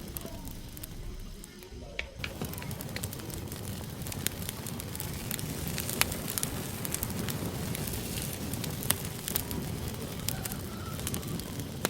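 Firewood burning in a campfire: a steady hiss with frequent sharp crackles and pops. It is quieter for about the first two seconds, then fuller, with a loud pop about six seconds in and another near nine seconds.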